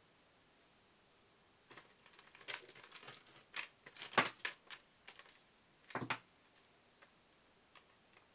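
Back cover of a Lenovo S660 smartphone being pried off by hand: a run of sharp clicks and snaps for a few seconds, the loudest about four and six seconds in.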